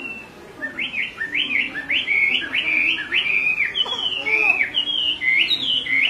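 Chinese hwamei (họa mi) singing: a quick run of clear whistled notes, each sweeping up and down, about three a second, starting about half a second in.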